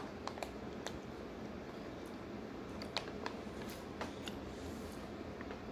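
Crinkling and crackling of an MRE ration pouch being picked at and peeled open by hand: a scatter of short, sharp crackles and ticks over faint room noise.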